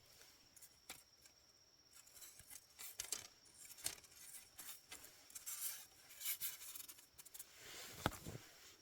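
Faint rustling and scraping handling sounds with scattered clicks, and a louder knock about eight seconds in.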